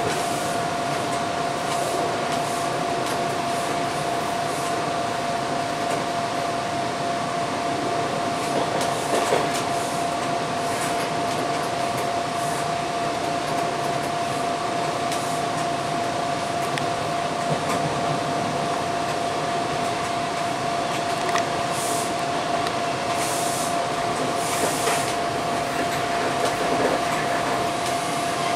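TTC T-1 subway car running along the track, heard from inside the front of the train: a steady rolling noise under a constant whine held at one pitch. A few sharp clicks from the wheels and track come through now and then.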